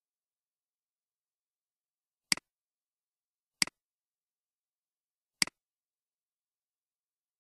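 Three computer mouse clicks, each a sharp press followed at once by a softer release, spaced a second or two apart against total silence.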